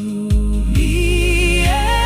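Background music: a slow love ballad, with a held melody line moving between notes over a steady bass drum beat.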